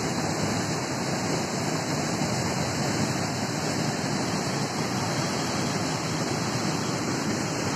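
Steady rush of water pouring over a low river weir.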